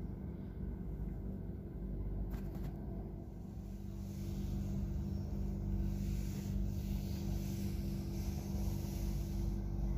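Sandstorm wind rumbling on the microphone, with a steady low hum underneath.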